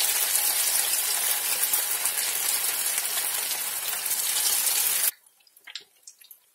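Hot oil sizzling and crackling steadily as sabudana vadas (sago and potato patties) deep-fry in a pan. The sizzle cuts off suddenly about five seconds in.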